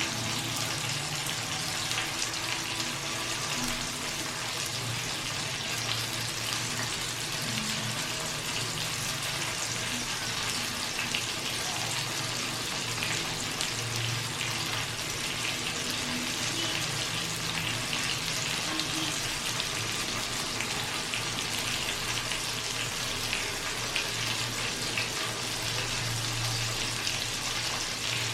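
Chicken sizzling and spitting in hot fat as it roasts, a steady dense crackle with a low hum underneath.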